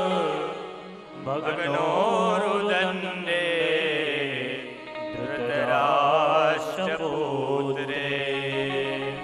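Male singers chanting a devotional bhajan to harmonium accompaniment. The voices waver through long sung phrases over a steady harmonium drone.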